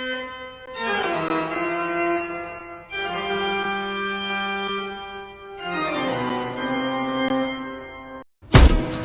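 Music of long sustained chords that change every two to three seconds. It cuts off abruptly near the end, and loud sharp hits begin just after.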